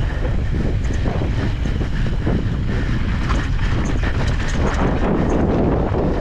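Wind buffeting the microphone of a camera riding on an e-bike, a steady low rumble, with scattered light clicks and crackles throughout.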